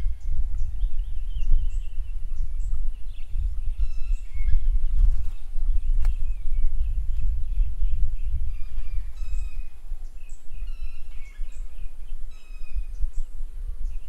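Wild birds chirping and calling in short, repeated high notes over a low, gusty rumble of wind on the microphone.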